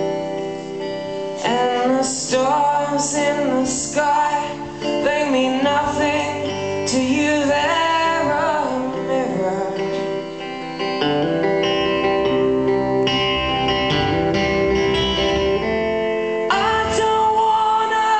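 Live song: a man singing over electric guitar and sustained held chords, with vocal lines starting about a second and a half in and returning near the end.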